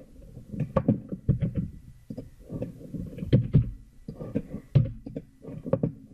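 Irregular soft clicks and low thumps from a computer mouse and keyboard being worked, picked up by the desk microphone.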